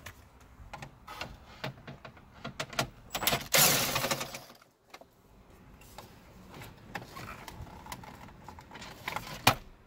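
A cordless impact driver runs briefly, a bit under a second, about three and a half seconds in, backing out a 7mm dash-trim screw. Around it come small clicks and the handling of plastic dash trim, with one sharp click near the end.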